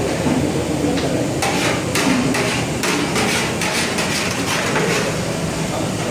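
A quick, irregular series of sharp knocks, most of them packed into a second or two about a third of the way in, over a steady background noise.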